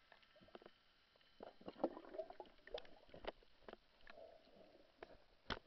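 Faint underwater clicks and knocks with a little gurgling, muffled by the water. The sharpest knock comes about five and a half seconds in.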